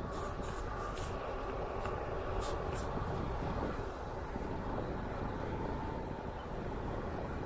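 Bicycle rolling on an asphalt path: steady wind rush on the microphone over tyre noise, with a few faint high clicks in the first three seconds.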